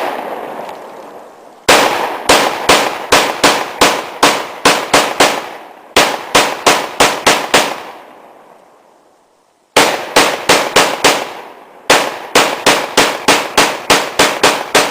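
Rapid gunfire: a gun fired about three shots a second in long strings, each shot echoing, with brief breaks and one gap of about two seconds in the middle.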